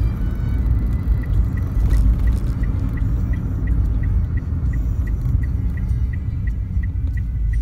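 Car cabin rumble of engine and tyres while driving, with a turn-signal indicator ticking evenly about three times a second from about a second in.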